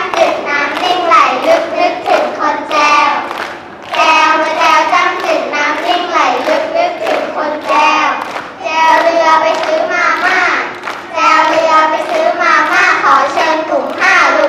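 Two children, a boy and a girl, singing together in phrases about three to four seconds long with short breaks between them.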